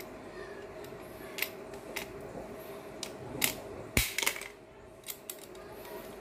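Spring-loaded crocodile clips of a handheld battery tester clicking and clacking as they are handled and clamped onto a battery's metal terminals: a scatter of sharp clicks, the loudest about four seconds in, over a faint steady hum.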